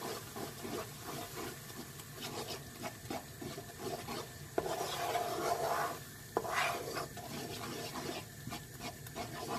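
Wooden spoon stirring and scraping a thick melted chocolate-and-honey mixture around a nonstick frying pan, a steady rubbing sound, with two light clicks about halfway through.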